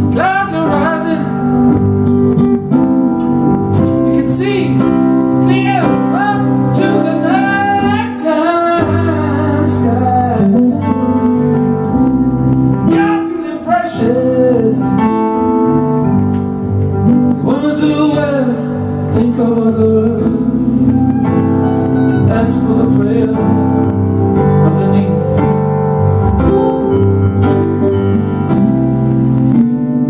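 Live band music: a man singing a melody over keyboard chords and electric guitar.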